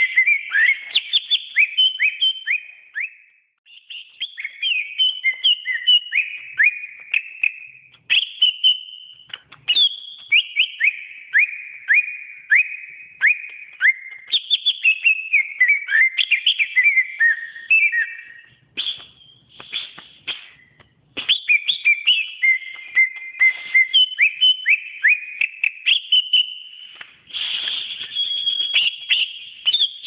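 Green leafbird (cucak ijo) singing a long, fast run of clear whistled notes, many sliding downward, broken by short pauses and one longer pause of about two seconds a little past halfway.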